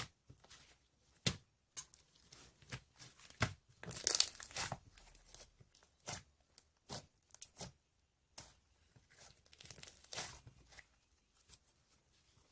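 Hands squishing and stretching slime: irregular sticky clicks, pops and crackling tearing sounds, densest about four seconds in and again near ten seconds.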